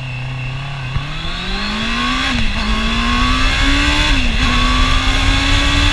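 Honda CB650R's inline four-cylinder engine accelerating hard, its pitch climbing steadily after about a second. It dips briefly at two quick upshifts, one a little after two seconds in and one just after four, then keeps rising. Low wind rush from riding speed runs underneath.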